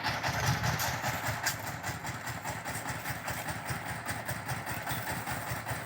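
An engine running steadily, with a fast pulsing beat low down and some light rattling.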